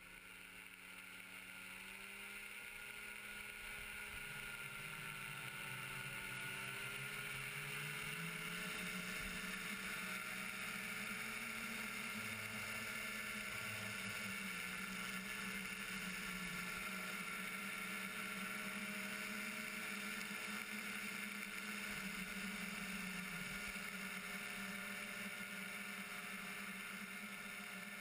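Powered parachute's engine and propeller running, rising in pitch and loudness over the first several seconds as it throttles up for takeoff, then holding steady in the climb.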